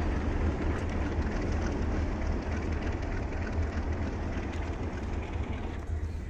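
Diesel locomotive approaching across a steel truss railway bridge, heard as a steady low rumble from a distance; the higher part of the sound thins out about six seconds in.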